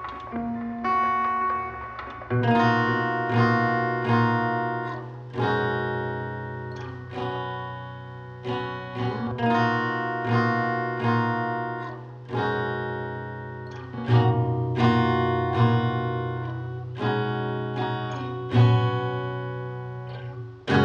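Instrumental guitar music: plucked chords struck about once or twice a second, each ringing and fading, over sustained low notes, with no singing.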